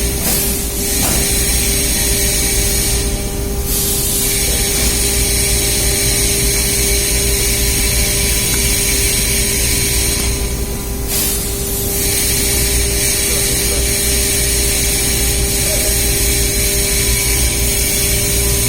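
Steady machinery drone with a constant hum and low rumble, broken by two brief hisses about three and ten seconds in.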